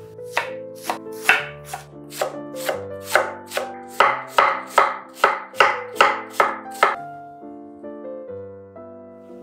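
Chef's knife slicing through a head of white cabbage onto a wooden cutting board: steady rhythmic chops, about two and a half a second, stopping about seven seconds in. Soft piano-like background music plays underneath.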